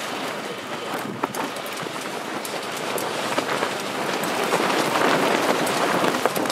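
Wind blowing across the microphone: a rough, steady rushing with scattered crackles, growing a little louder about four seconds in.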